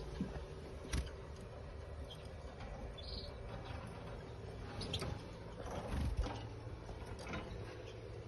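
Small cage birds in a bird room, with scattered short chirps, clicks and fluttery movements over a low, steady hum.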